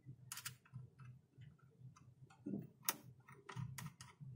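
Small metal tool clicking and scraping against a battery terminal connector while soldering paste is dabbed on it before soldering. Faint, irregular clicks, the sharpest about three seconds in.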